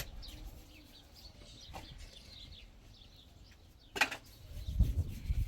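Birds chirping, with a sharp click about four seconds in and low rumbling near the end.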